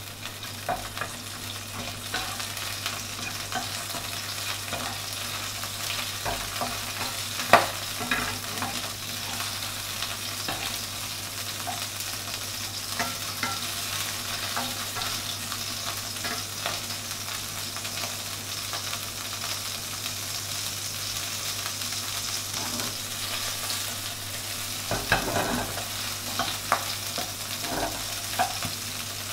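Shrimp heads sizzling in hot oil in a wok, stirred with a wooden spatula that scrapes and knocks against the pan now and then, loudest about seven and a half seconds in and again in a cluster near the end. The heads are being fried to draw the shrimp fat out into the oil.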